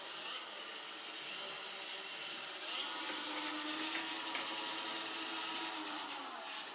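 Roomba 530 robot vacuum running, a steady motor hum and brush noise. A motor whine rises in pitch about two and a half seconds in, holds, and falls away near the end.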